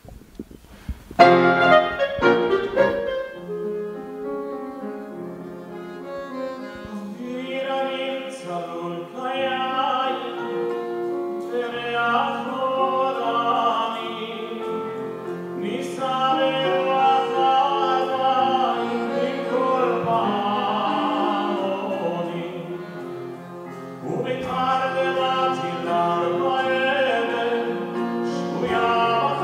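Cantor singing with a grand piano and a small band (clarinet, double bass, drums) in a concert hall; the music starts abruptly about a second in.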